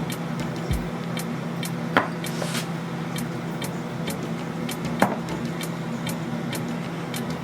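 Two sharp knocks, about two and five seconds in, of containers or utensils against a mixing bowl or counter as marinade ingredients are added, over a steady low hum with faint regular ticking.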